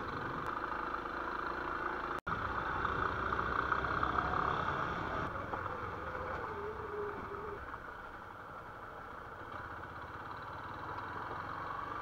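Motorcycle engine running as the bike rides along a dirt road, with wind and road noise. It is louder in the first half and eases off in the second half. The sound cuts out for an instant about two seconds in.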